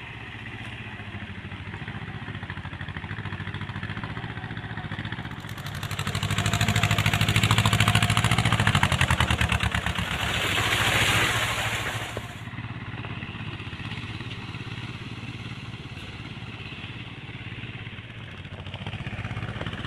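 Small Mahindra tractor's diesel engine running steadily while tilling wet ground with a rotary tiller. It grows much louder and brighter for about seven seconds in the middle as the tractor works close by, then falls back to a steadier, more distant running.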